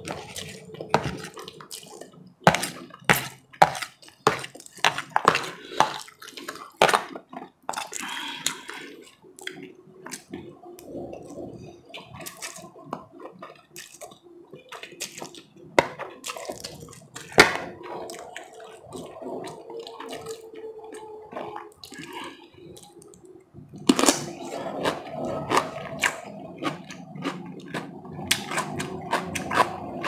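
Close-miked eating of ramen noodles: wet slurping and chewing, with many sharp clicks of a fork against the plate. The clicks come thick in the first several seconds and again near the end, with quieter chewing between.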